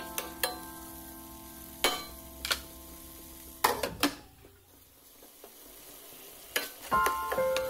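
A spatula stirring tomatoes frying in a pan, knocking and scraping against the pan now and then over a faint sizzle. A glass lid clatters against the pan in a quick cluster of knocks a little past halfway.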